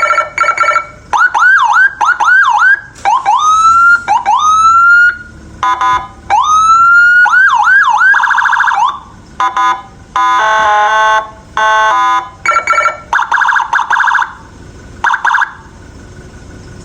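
Electronic police siren switched through its tones in short bursts: fast warbling yelps, quick repeated rising whoops and longer rising wails, and, about ten seconds in, a blaring multi-tone horn. Each tone is cut off after a second or two.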